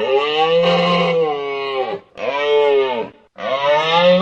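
Moose calling: three long, drawn-out moaning calls in a row, each dipping in pitch at its end, the last still going at the close.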